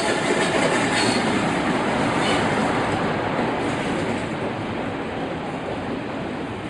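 Train running on the rails, wheels clattering with a few brief squeals, the sound slowly fading.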